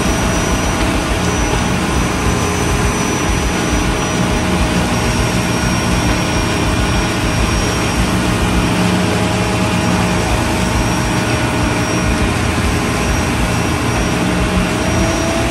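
Ready-mix concrete mixer truck running: a loud, steady engine drone with a thin steady whine over it.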